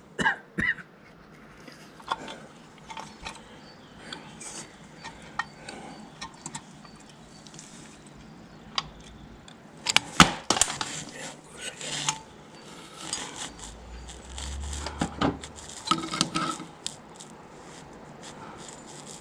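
Scattered clinks, clicks and rattles of small metal parts and hand tools being handled while fitting a split pin into a tractor's brake latch linkage, with a sharper cluster of clicks about ten seconds in.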